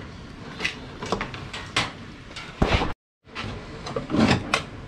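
Handling noise from battery charger leads and a plastic Anderson connector: scattered clicks, knocks and rustles, with a louder scrape about two and a half seconds in. The sound drops out completely for a moment just after three seconds.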